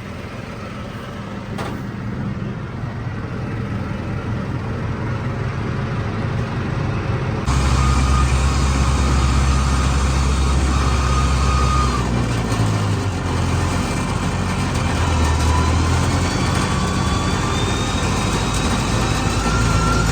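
Heavy diesel engine of a rice-harvesting machine running under load in mud. It gets steadily louder, then becomes sharply louder and deeper at about seven and a half seconds, with a whine that rises in pitch near the end.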